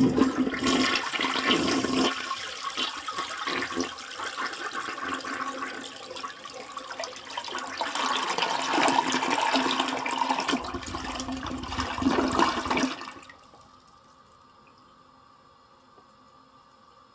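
Toilet flushing: a sudden loud rush of water that lasts about thirteen seconds, then drops off to a faint steady hiss.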